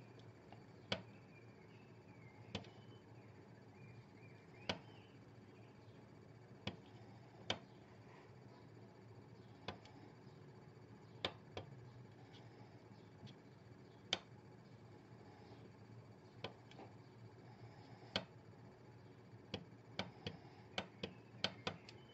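Geiger counter's piezo buzzer giving sharp single clicks at random intervals, roughly one a second with a few close together near the end: each click is a count from the Geiger–Müller tube at normal background radiation.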